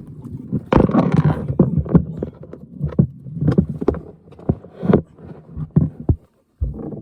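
Irregular knocks, clicks and rattles of hands working a faucet hose's snap-on connector into place under a sink.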